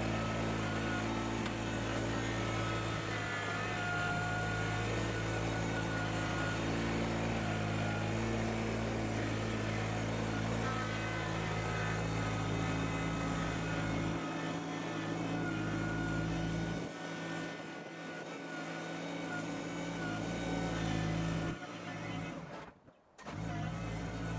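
Homemade vibrating soil screener running on its electric vibrator motor with a steady hum, soil shaking through the screen, while a Kubota BX tractor's diesel engine runs alongside. The sound briefly cuts out near the end.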